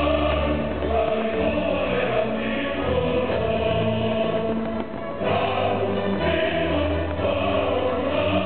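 Choral music: a choir singing held chords with accompaniment, briefly dropping away about five seconds in.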